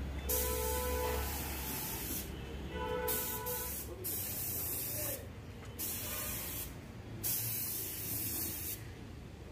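Compressed-air gravity-feed spray gun hissing as paint is sprayed onto a plastic car bumper, the hiss stopping and restarting several times between passes.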